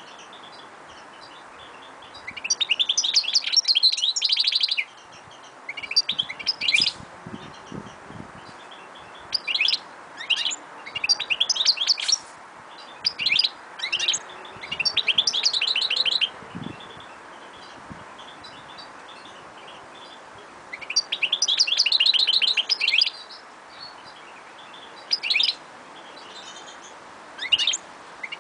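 A goldfinch × canary hybrid (a 'mule') singing: about eight phrases of rapid, high twittering notes, each a second or two long, with pauses between.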